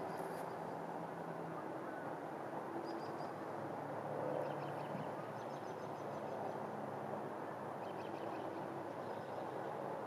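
Distant road traffic, a steady rumble and hiss, with faint high chirping calls breaking in a few times over it.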